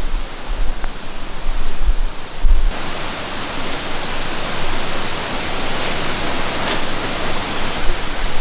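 Low gusts of wind buffeting the microphone for the first few seconds, then, after an abrupt change, the steady rushing hiss of a stream.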